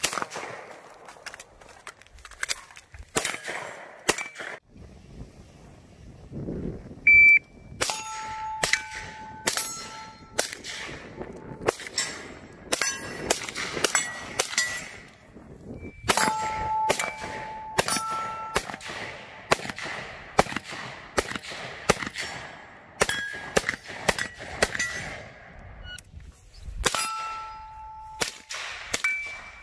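A string of rifle shots from an AR-type rifle in .300 Blackout, fired singly, in pairs and in quick runs. Many of the shots are followed by steel targets ringing, each at its own pitch.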